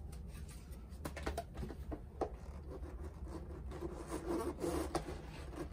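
Scratchy rubbing and scraping as the end of a PVC pipe is wiped with lubricant on a sponge and then worked against a plastic sump dome, with a few light plastic clicks and knocks.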